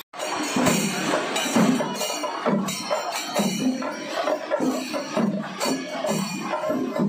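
Kerala festival percussion ensemble: drums beaten in a steady, driving rhythm with jingling cymbals over them, heavier accents falling a little under once a second. The sound drops out for a moment at the very start.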